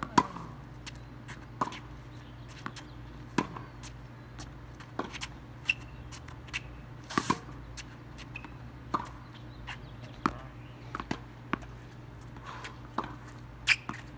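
Tennis rally on a hard court: sharp pops of racket strikes and ball bounces, about a dozen at irregular intervals, the loudest near the start and about seven seconds in, over a low steady hum.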